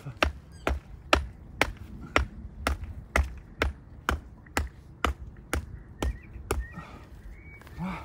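A hammer driving a wooden stake into the ground: about fourteen steady blows, roughly two a second, which stop about six and a half seconds in.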